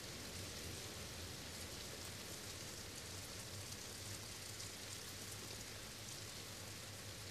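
Steady rainfall, an even hiss of drops that holds level throughout.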